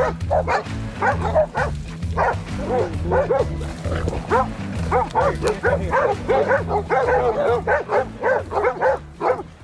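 Hog dogs baying, a fast, unbroken run of overlapping barks from several dogs that thickens about halfway through: the sign that they have a wild hog stopped at bay. A low background music bed runs underneath.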